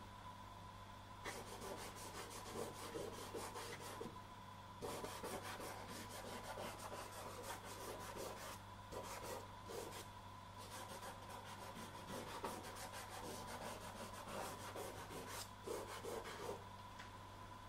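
Soft pastel stick scratching and rubbing across textured pastel paper in quick repeated strokes, pausing briefly about a second in, around four seconds in and near the end. A faint steady electrical hum runs underneath.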